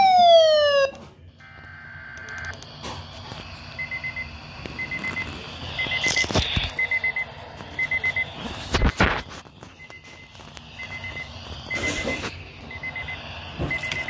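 An electronic tone falling in pitch, then a Midland ER210 weather alert radio beeping in alert mode: short clusters of quick high pips about once a second. Three louder rushes of noise come about 6, 9 and 12 seconds in.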